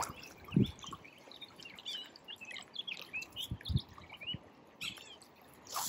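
Songbirds chirping and singing over the faint steady rush of a river, with a few brief low thumps, the loudest about half a second in.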